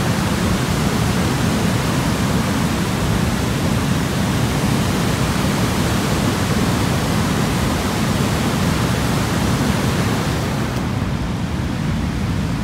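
Steady roar of a large river waterfall and whitewater rapids, a dense rushing noise heaviest in the low end. It turns a little duller near the end.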